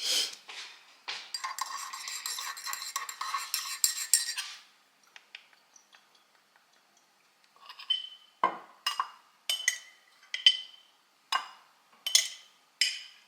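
Dishes and cutlery clinking: a few seconds of continuous clattering, then, after a short pause, a run of separate sharp ringing clinks about twice a second.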